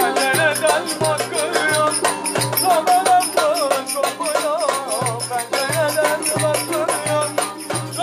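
Local Black Sea folk dance tune (oyun havası) played on violin with a frame drum: the violin carries a quick, heavily ornamented, wavering melody over regular low drum beats and a dense, fast rattling percussion.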